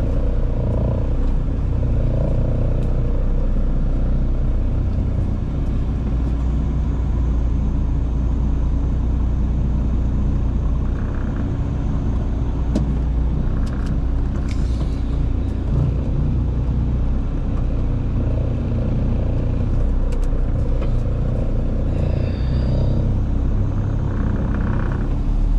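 Semi truck's diesel engine running steadily at low speed, heard from inside the cab as the rig pulls slowly out of a tight parking spot. A few light clicks are heard over it.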